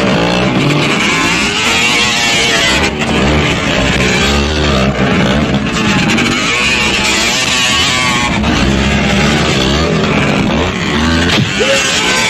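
Motor vehicle engines revving hard, their pitch rising and falling again and again.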